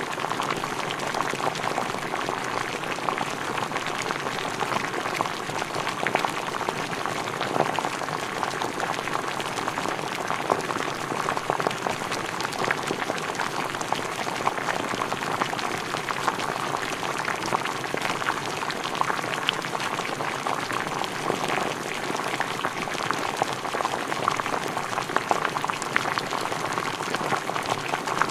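Food boiling: liquid bubbling steadily at a rolling boil, a dense stream of small pops and crackles.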